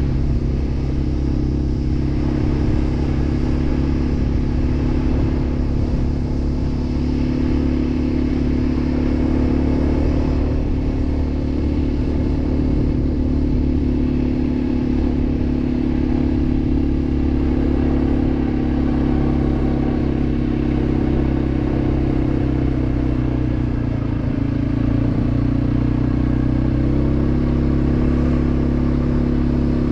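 Quad bike engine running steadily under way, its pitch dipping briefly and picking up again near the end.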